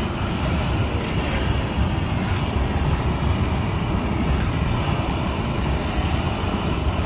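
Steady loud running of a hot-air balloon's engine-driven inflator fan, blowing air into the envelope as it is inflated on the ground.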